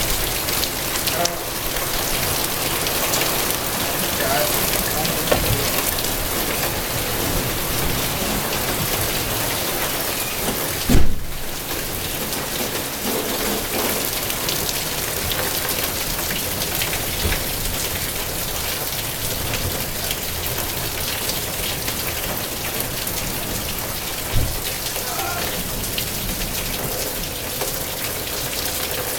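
Heavy rain pouring down steadily, a dense hiss of drops hitting surfaces. A brief low thump about eleven seconds in and a smaller one near the end.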